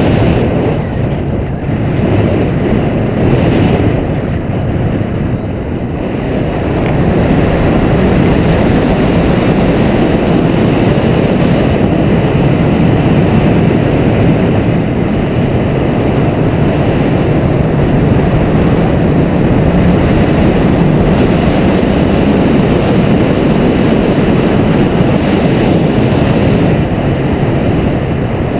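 Airflow rushing steadily over the microphone of a camera mounted on a hang glider's wing in flight, a loud, deep wind roar that eases slightly for a moment or two near the start.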